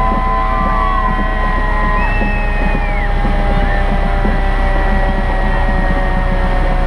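Fire truck engine running steadily at a slow crawl, a loud low rumble with an even pulse. Over it, several long steady tones slowly sink in pitch.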